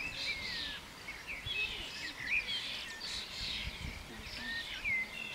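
Small songbirds chirping and whistling, many short rising and falling calls overlapping.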